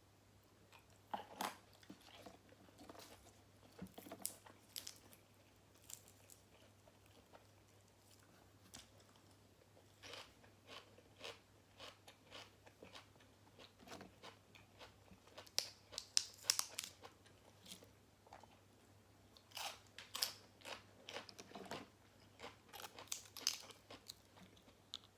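Close-miked chewing and crunching of grilled pork balls and crisp raw vegetables: irregular clusters of crunchy bites and chews every few seconds, loudest a little past the middle and near the end.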